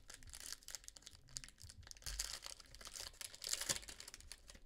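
Foil wrapper of a trading-card pack crinkling and tearing as it is opened and the cards are slid out, a faint crackle that gets busier about three and a half seconds in.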